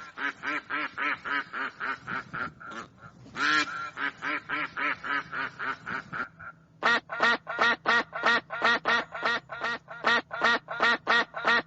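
Duck quacking in fast runs of about four quacks a second. It pauses briefly about six seconds in, then starts a louder run.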